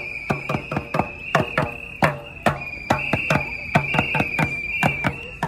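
Loud, irregular banging, about three or four beats a second, from noisemakers carried in a marching street protest, over a shrill high tone that is held with only brief breaks.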